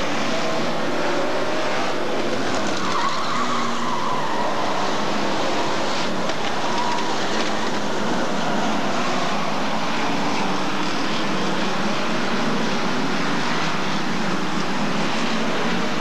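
A pack of Hotstox stock cars racing round an oval track, several engines running together in a steady drone that rises and falls in pitch as they lap.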